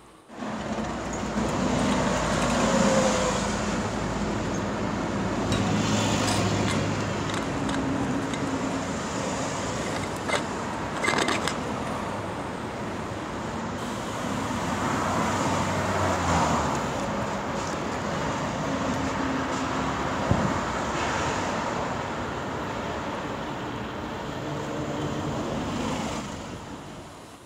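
Stovetop pressure cooker heating on a gas burner: a steady hissing noise with a faint low hum.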